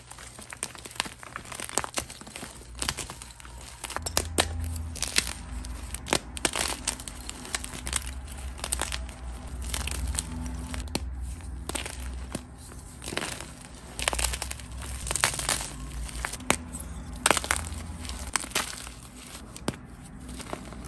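Blocks of gym chalk crushed and snapped by hand, giving a stream of irregular crisp snaps and crackles as the blocks break and the crumbled chalk crunches.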